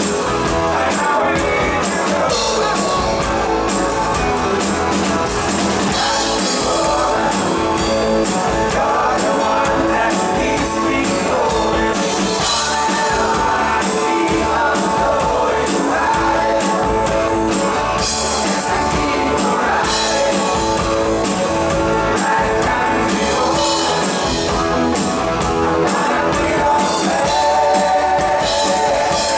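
Live rock band playing, with electric guitars over a drum kit and a singing voice.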